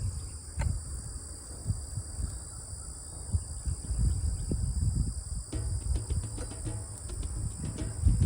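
Steady high chirring of an insect chorus, crickets or similar, with irregular low rumbling from wind or handling of the microphone. A run of faint quick clicks joins in about two-thirds of the way through.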